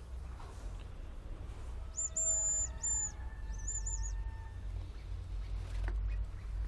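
Hazel grouse song: very high, thin whistles, two longer notes about two seconds in followed by a quick run of three short ones.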